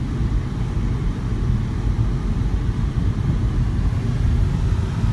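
Steady low rumble of road and engine noise inside the cabin of a moving Volvo car.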